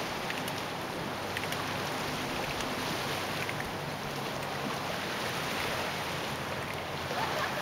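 A distant boat engine droning steadily under a continuous wash of wind and small waves lapping on a rocky lakeshore.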